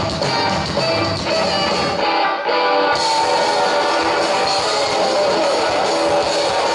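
Live psychedelic rock band playing, with electric guitars to the fore. Around two seconds in the deep bottom end drops away for about a second, then the full band comes back in.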